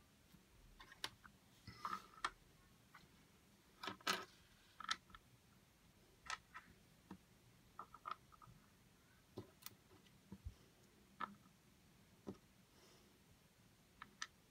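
Plastic Lego pieces and minifigure parts being picked up and set down on a board: scattered faint clicks and taps, the loudest cluster about four seconds in.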